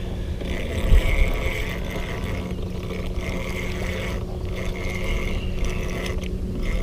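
Wind rumbling on the microphone, with a steady low hum underneath and a brief louder gust about a second in.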